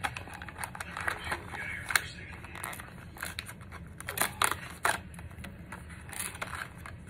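A snack-cake box being opened by hand: cardboard and crinkly plastic wrapper and tray handled, with irregular clicks, crackles and small tearing sounds.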